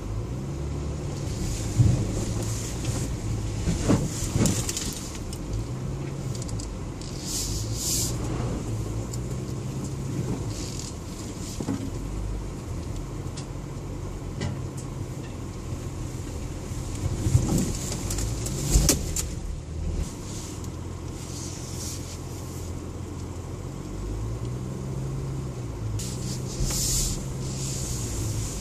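SUV engine heard from inside the cabin while crawling over a rutted off-road track, its low note stepping up and down with the throttle. Occasional sharp thumps from the vehicle jolting over bumps, loudest about 2, 4 and 19 seconds in.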